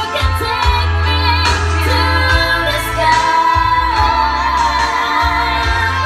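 A woman sings into a microphone over a backing track of keyboard chords and deep bass, amplified through Alto TS315 powered PA speakers and an Alto TS318S powered subwoofer. The sung line wavers with vibrato, and the bass notes are held for a second or two each.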